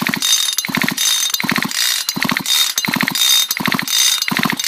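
Husqvarna chainsaw's recoil starter pulled over and over, about six quick, evenly spaced pulls, each a ratcheting whir as the engine spins. It is being cranked for a spark test, so it does not fire.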